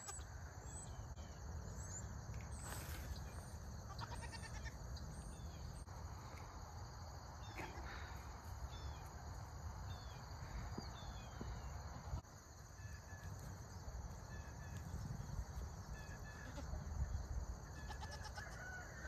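Goats bleating now and then over a low, uneven rumble of wind on the microphone.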